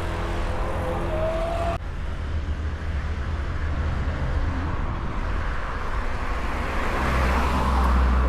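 Road noise from a moving motor vehicle: a steady low rumble with wind hiss. About two seconds in, a steady pitched drone with a brief rising tone cuts off abruptly. The rumble grows louder near the end.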